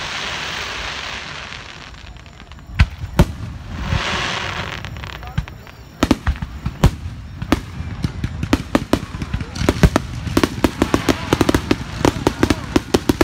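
Fireworks display: a hissing spell, several separate sharp bangs, then a dense run of rapid crackling pops from a little past the middle.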